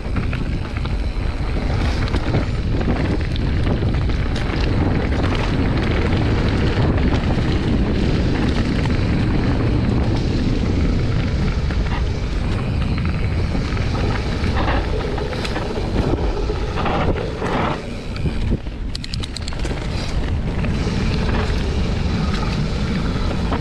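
Wind rushing over the camera microphone, with the mountain bike's tyres rolling over a dry-leaf-covered dirt trail and knocks and rattles from the bike over bumps.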